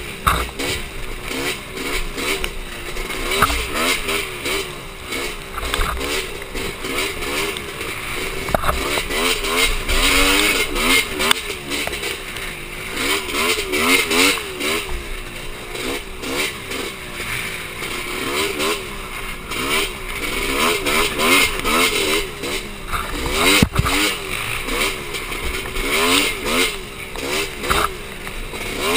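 Polaris Scrambler 400 two-stroke ATV engine heard up close, revving up and falling back over and over as the quad is ridden hard, with occasional sharp knocks from the rough ground.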